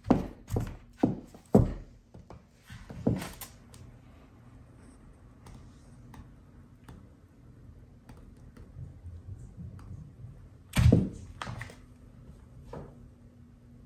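High heels stamping on dry floral foam on a hardwood floor: a quick run of four crunching thuds in the first two seconds, another about three seconds in, then faint crumbling ticks and one heavy thud about eleven seconds in, with two smaller ones after it.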